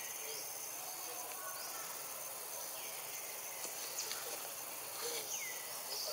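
Steady, high-pitched drone of forest insects, with two short calls that slide down in pitch about three and five seconds in.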